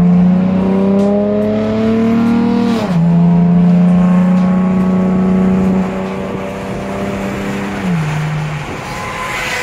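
Chevrolet Camaro V6 with a muffler delete, heard from inside the cabin while accelerating. Its exhaust drone climbs in pitch, drops at an upshift about three seconds in, climbs slowly again and drops at another shift near eight seconds, then eases off.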